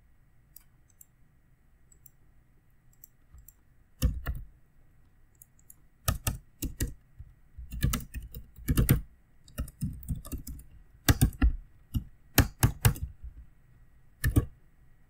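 Typing on a computer keyboard: irregular keystrokes, single and in quick runs, starting about four seconds in after a few faint clicks.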